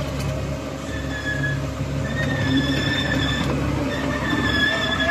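Komatsu PC130 excavator's diesel engine running steadily, with long high-pitched squeals coming and going three times over it.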